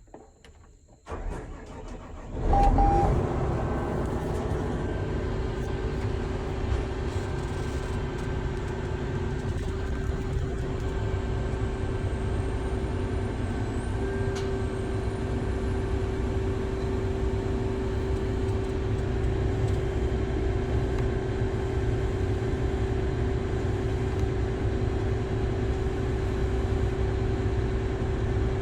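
A large diesel engine on farm harvest equipment cranks and catches about two and a half seconds in, then runs steadily with a constant whine over its rumble.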